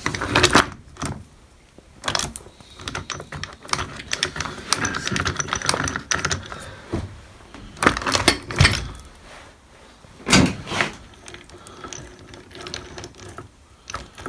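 Irregular metallic clicking, knocking and rattling of the opened chain hoist's gears and parts being handled and turned by hand, with a few louder knocks.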